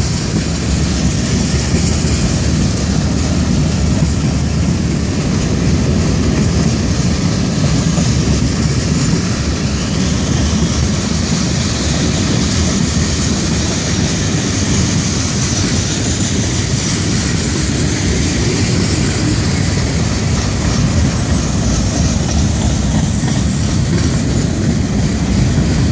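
Mixed freight train cars (tank cars, covered hoppers and boxcars) rolling past at a steady cruising speed, their steel wheels running on the rails with an even, unbroken noise.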